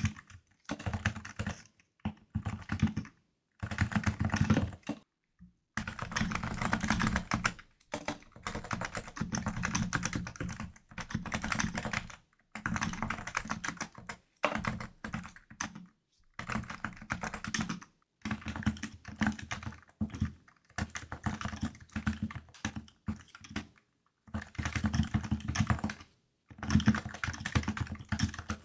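Typing on a Realforce R2 keyboard with stock 45 g Topre switches: fast runs of keystrokes in bursts of a few seconds, with short pauses between them.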